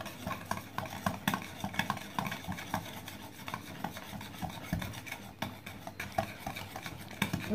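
Wire balloon whisk beating a thick mixture of butter, sugar, eggs and condensed milk in a bowl: a run of quick scraping strokes with light clicks of the wires against the bowl.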